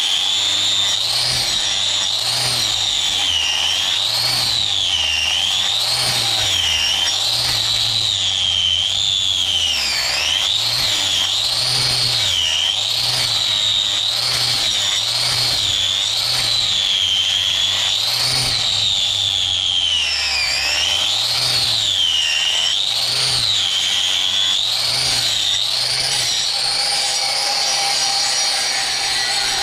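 Electric hoof-trimming grinder cutting a cow's hoof, its high whine rising and falling in pitch about once a second as the disc is worked against the horn. It dips lower twice, about a third and two-thirds of the way through.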